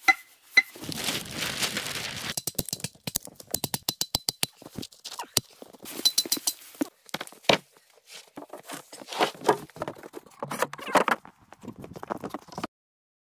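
Hand-tool work on logs and pine boards: scraping, a quick run of sharp knocks and clacks, and wooden thunks, heard in short cut-together snippets. The sound cuts off suddenly near the end.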